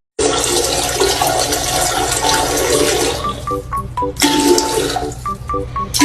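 A loud rushing noise for about three seconds after a sudden start, then background music of short plinking notes with two shorter bursts of the same rushing noise.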